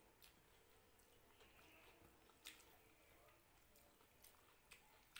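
Faint, scattered wet clicks and squishes of someone eating rice and dal by hand, the sharpest click about halfway through.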